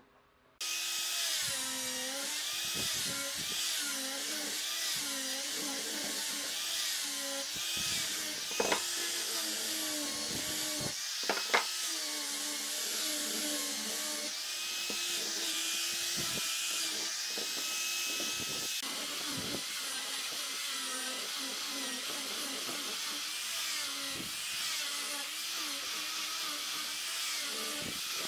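Angle grinder with a sanding disc running against a wooden workpiece, sanding it. It starts about half a second in with a steady high-pitched whine over a loud sanding hiss, the pitch wavering as the disc is pressed on. Two short sharp knocks come partway through.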